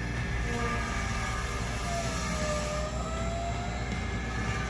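An excavator-mounted LogRipper circular log saw running: a steady mechanical noise with a faint whine that slowly wavers in pitch.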